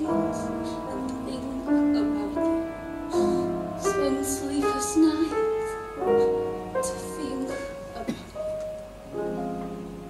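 Piano accompaniment with a woman singing slow, held notes in a musical-theatre ballad.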